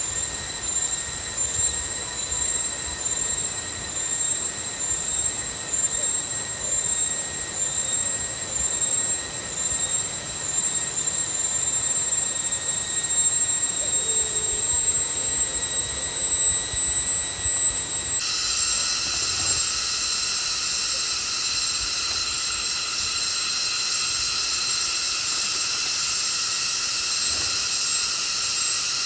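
Insect chorus, a steady high-pitched whine with a pulsing layer above it. About eighteen seconds in it changes abruptly to a denser buzzing at several pitches as another insect takes over.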